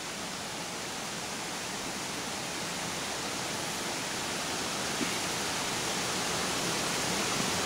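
Steady rushing of a rocky stream running over and between boulders, growing slowly louder, with a single small knock about five seconds in.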